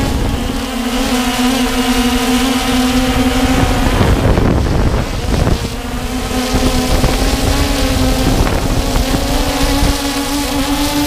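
Electric motors and propellers of a Walkera Tali H500 hexacopter whining steadily, heard through the onboard camera's microphone with wind buffeting it. The pitch wavers around four to six seconds in and rises slightly near the end as the motor speed changes.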